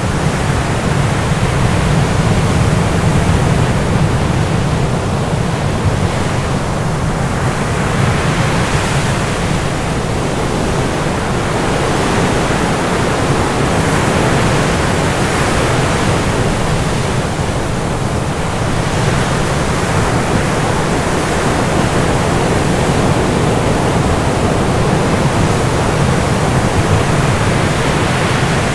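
Dense, steady rushing noise like heavy surf or a waterfall, swelling gently now and then.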